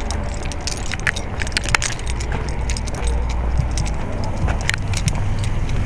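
Toyota Tundra pickup idling, a low steady rumble, with scattered light clicks and jingles over it.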